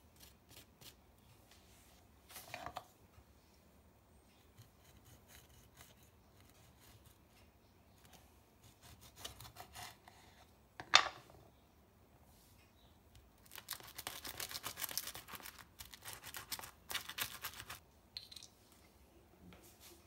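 A cut tomato half rubbed hard over crusty toasted bread, rasping and scraping in short strokes, with a dense run of scraping in the second half. One sharp, louder scrape stands out about halfway through.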